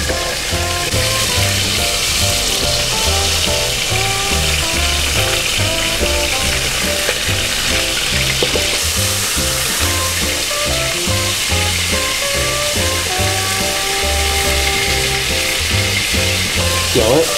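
A piece of beef searing in hot olive oil in a frying pan, sizzling steadily as it is turned with metal tongs. Background music with a bass line plays throughout.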